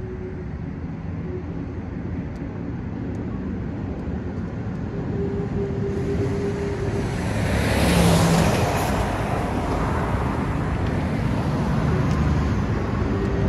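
A vehicle's engine rumble building steadily as it draws nearer, with a rush of noise that is loudest about eight seconds in.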